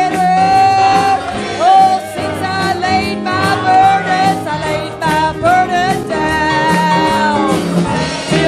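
Live gospel worship music: a sung melody with held notes over a band with guitar and a steady beat.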